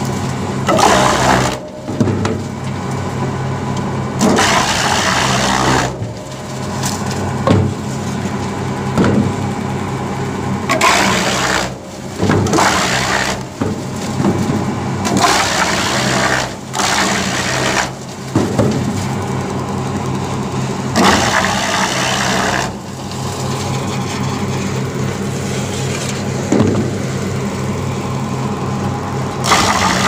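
Electric-motor-driven disc wood chipper running with a steady hum, its blades chipping logs fed in by the conveyor in loud spells of crunching a second or two long, every few seconds.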